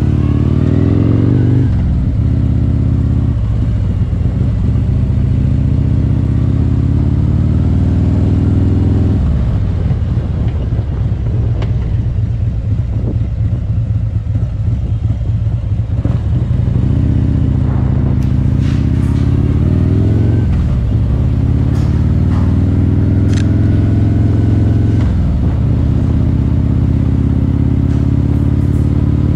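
Harley-Davidson touring motorcycle's V-twin engine and exhaust running steadily under way, heard from the saddle. The low note dips and climbs again several times with throttle and gear changes.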